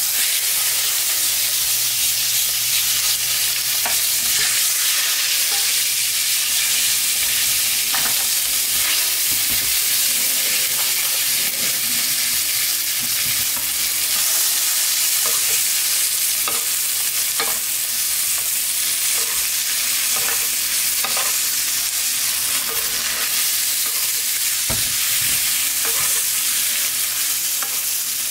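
Bone-in ribeye steak sizzling hard in oil and melting butter in a frying pan, a steady frying hiss. Tongs and a basting spoon tap and scrape against the pan now and then as the steak is turned and basted.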